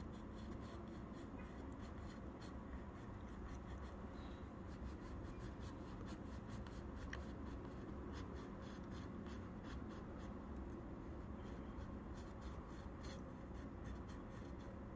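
Wooden graphite pencil scratching on paper in many short, faint strokes as lines are traced over, against a steady low background hum.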